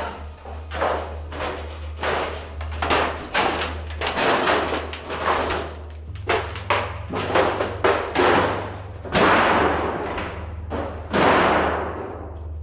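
Footsteps crunching and clattering over debris on the floor, about two steps a second, with two longer, louder scrapes near the end. A steady low hum runs underneath.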